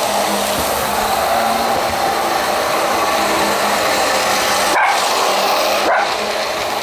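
An electric model train runs past on its track with a steady motor-and-wheel whir, and a small dog, a Chihuahua, barks at it.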